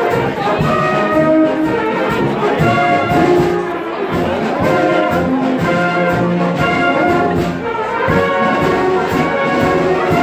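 Brass band music, with trumpets and trombones playing sustained chords.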